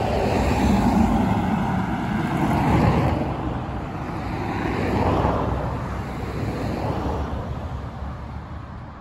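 Road traffic passing: a rushing swell of tyre and engine noise that rises and falls a few times, then fades away near the end.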